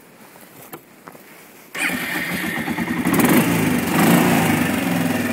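A 1997 Kawasaki Prairie 400's single-cylinder four-stroke engine starts up suddenly about two seconds in, after a few faint clicks. It is revved lightly twice and then runs at a steady idle.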